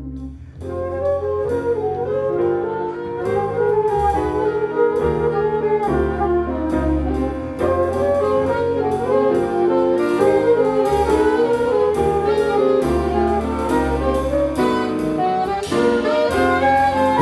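Live jazz septet playing: flute, alto and tenor saxophones in ensemble over piano, guitar, double bass and drums. About half a second in, the full band with drums and cymbals comes in under the horns.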